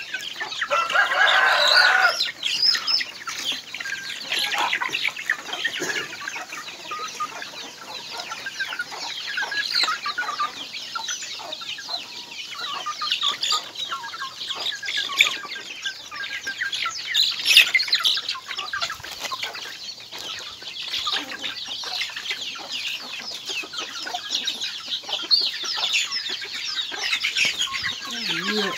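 A flock of native chickens, adult hens and young birds, clucking with many short high calls while they feed, with a louder flurry about a second in.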